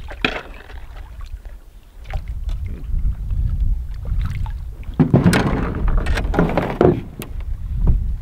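A canoe being paddled in to a rock shore: paddle strokes and water sounds over a low rumble. About five seconds in comes the loudest part, a rough grinding and knocking of the hull against the rock lasting about two seconds, followed by a couple of sharp knocks.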